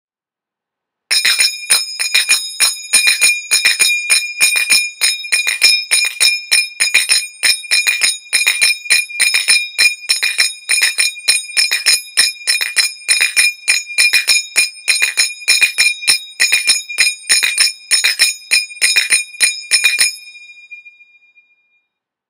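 Finger cymbals (zills) played in a long run of quick ringing strikes, several a second, in groups with brief breaks between them. The strikes stop about 20 seconds in and the last ring fades out.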